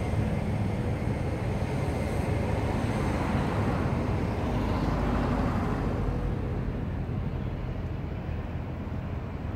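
Diesel tractor engines running with a steady low rumble that fades over the last few seconds.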